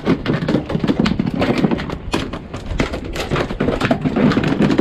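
A dense, irregular run of knocks and thuds, several a second, on a small fishing boat.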